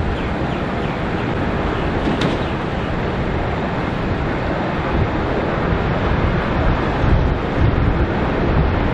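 Steady jet engine noise from a landing Boeing 777, an even rumble with no distinct tones.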